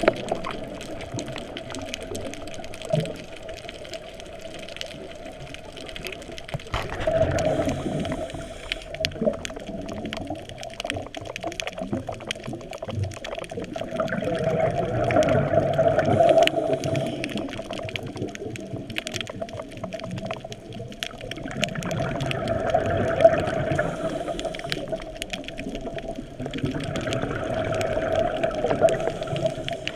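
Scuba diver's exhaled bubbles rushing from the regulator, heard underwater through the camera housing, in surges every seven seconds or so with each breath out, over a steady hum.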